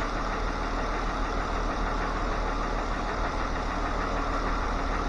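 2013 Jeep Wrangler Rubicon's 3.6-litre Pentastar V6 idling steadily while warming up.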